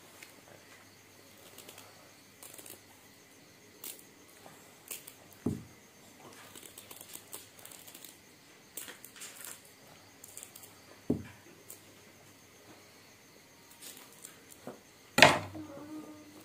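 Kitchen knife paring and scraping a small vegetable by hand: soft scrapes and light clicks, with three knocks on the wooden table, the loudest near the end as the knife is laid down.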